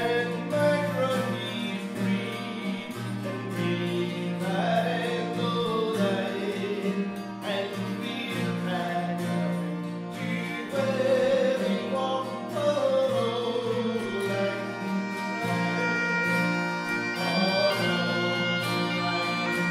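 Bagpipes holding a steady drone under two acoustic guitars while a man sings a melody; in the last few seconds held high pipe notes sound over the singing.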